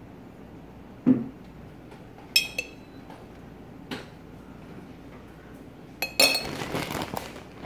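A metal spoon knocking, clinking and scraping while tomato sauce is scooped and spread onto English muffin halves. There is a dull knock about a second in, then two ringing clinks, and another pair of clinks near the end, followed by a second or so of scraping.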